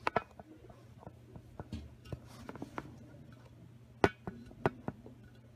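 Scattered light clicks and taps of handling, the sharpest about four seconds in, over a steady low hum.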